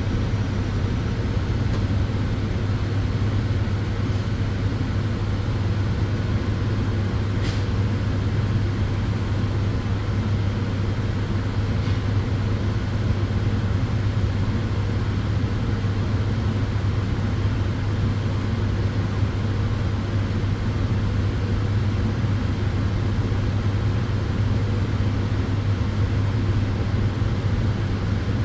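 Sunbed running: a steady fan whoosh over a strong, constant low hum, with a couple of faint ticks partway through.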